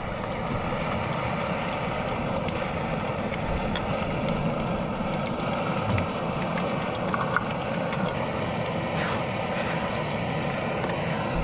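Steady hiss of a portable canister gas stove burner and battered yabby tails deep-frying in a small pot of oil, with a few light metal taps as the pieces are fished out with a fork.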